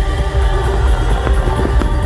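Loud music with a heavy pulsing bass.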